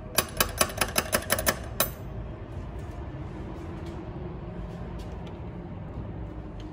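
Rapid knocking on a wooden front door: about nine sharp knocks in quick succession, lasting under two seconds.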